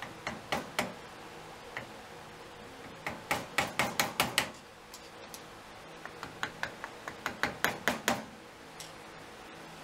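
A small 1/4-inch wood chisel working the corner of an aluminum vise jaw, cleaning out excess metal. It makes light, sharp taps: a few single ones, then two quick runs of taps a few seconds apart.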